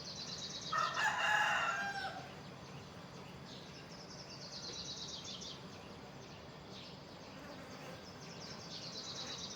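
A rooster crows once, about a second in. Around it, high rapid pulsing trills that fall in pitch come and go three times over the faint outdoor background.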